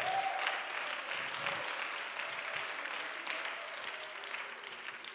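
Congregation applauding, the clapping dying away gradually, with a faint held note underneath.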